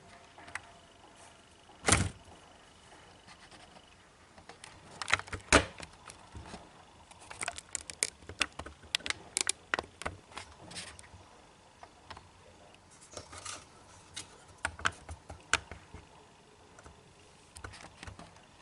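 Small clicks, taps and rattles of plastic and metal parts being handled as a DVD drive's lens pickup is fitted onto its guide shaft: one sharp click about two seconds in, then several clusters of quick clicks.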